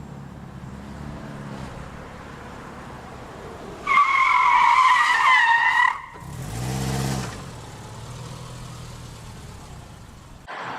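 Car engine running, then a loud tyre squeal lasting about two seconds, followed by a short engine rev that rises and falls.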